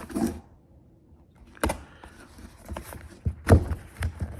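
Handling noise from wrestling open a tightly packed box of light mounts: a sharp knock after a short lull, then a run of clicks and clunks as the packaging and the metal parts inside are worked loose.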